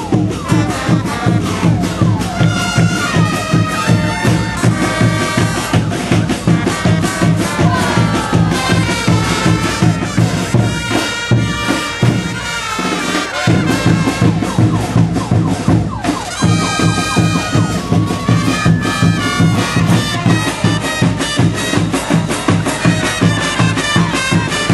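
Andean brass band (banda de bronces) playing tinku music: brass melody over a steady, driving drumbeat.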